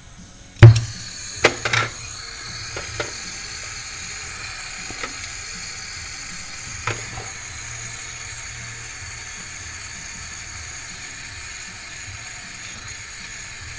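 Small air-acetylene torch with a number 3 tip on an MC tank, a sharp pop under a second in as it lights, then the flame burning with a steady hiss while it heats an aluminum evaporator joint for soldering. A few light clicks and taps in the first seconds.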